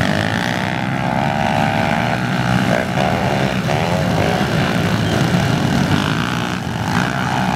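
A pack of pit bikes racing past, many small motorcycle engines buzzing together, with revs rising and falling around three seconds in.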